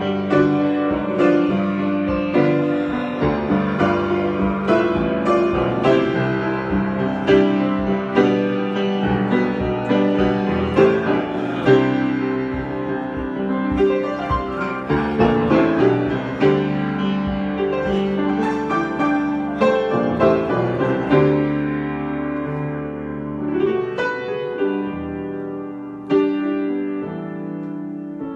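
Solo piano improvisation: a continuous flow of chords and melody notes, growing softer over the last few seconds.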